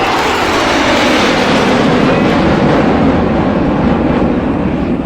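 Jet aircraft flying past, a loud roar whose pitch falls steadily as it goes by.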